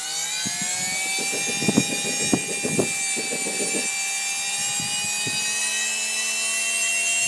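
Wren MW44 turbine spooling up during a kerosene start: a high whine that rises in pitch, then levels off and creeps slowly higher, with irregular crackling pops over the first few seconds as the kerosene lights.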